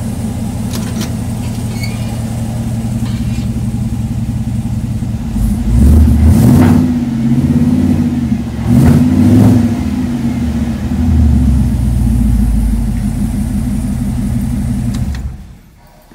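1964 Chevrolet Impala's small-block Chevy V8 idling through a new dual exhaust with Magnaflow mufflers, revved several times from about five seconds in, then switched off near the end. A slight exhaust leak can be heard, which the owner puts at a pipe clamp.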